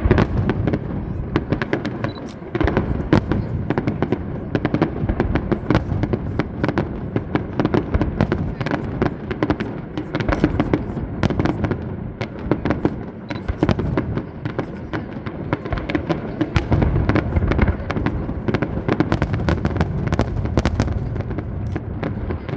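Aerial fireworks display: a dense, continuous barrage of shell bursts and crackling, with a heavier run of deep booms about two-thirds of the way through.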